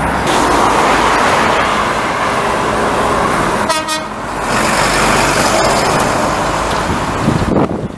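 Heavy road traffic passing close by, a lorry among it, as a steady loud rush. A brief vehicle horn toot sounds about four seconds in.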